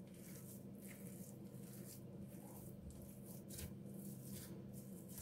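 Faint, soft squishing of crumbly, oily cookie dough being kneaded and pressed by hand in a glass bowl, in irregular strokes over a steady low hum.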